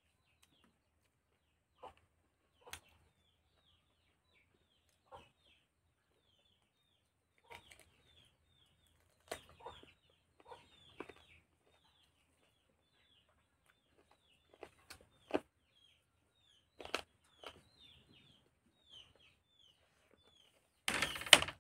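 Chickens clucking and cheeping, a continual run of short, high, falling cheeps. Scattered soft clicks and taps come from hand-eating off a plastic plate, and a brief loud rush of noise comes near the end.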